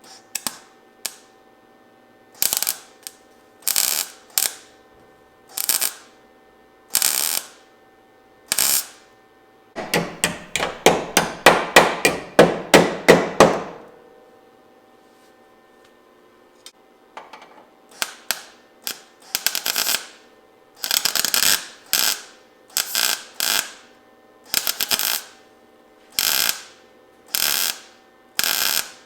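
A welder laying short tack and stitch welds on sheet-metal rocker panels: a string of brief crackling bursts, about one a second. About ten seconds in there is a longer, louder run of rapid pulses lasting some four seconds.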